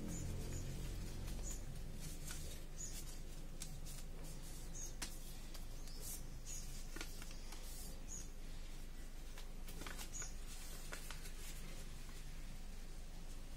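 A sheet of origami paper rustling and crinkling as it is folded and its creases pressed flat by hand: scattered soft crackles over a faint steady hum.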